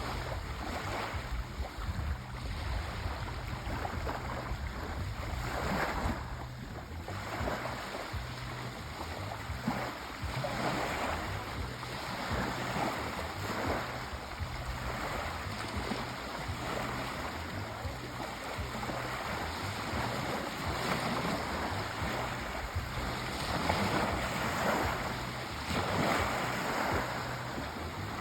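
Sea waves washing onto a shore in a continuous surging wash that swells and eases every few seconds.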